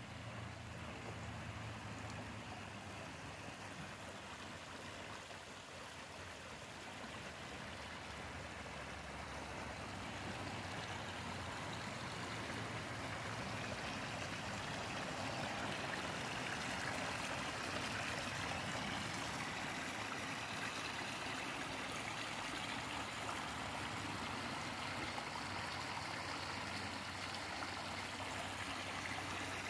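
Shallow creek running over a rock bed: a steady rush of water that grows gradually louder about halfway through, where the water runs in a thin sheet over the rock.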